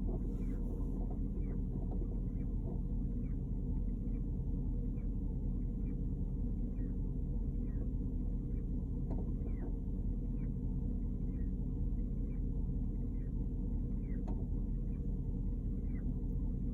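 2010 Porsche Cayenne GTS V8 engine running with a strange repeated chirping noise: short, high chirps that fall in pitch, about twice a second, over the steady engine rumble.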